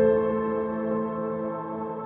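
Ambient background music: one sustained chord, struck just before, slowly fading.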